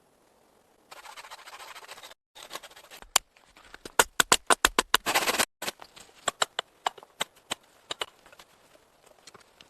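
A second or so of rustling, then a fast run of sharp cracks and clicks, densest about four to five seconds in and thinning to scattered clicks toward the end.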